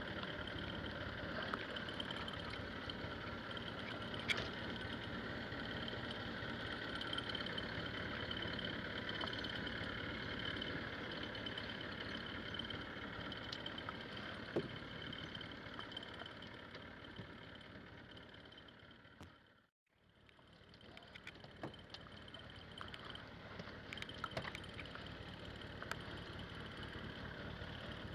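Steady mechanical hum of a boat's engine and machinery at sea, with a few light clicks and knocks; it fades out about two-thirds of the way through and fades back in.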